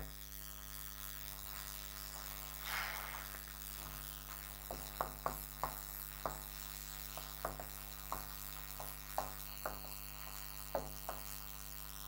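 A pen stylus tapping and clicking on a touchscreen interactive whiteboard as words are handwritten: about fifteen short, irregular taps in the second half, over a steady electrical hum.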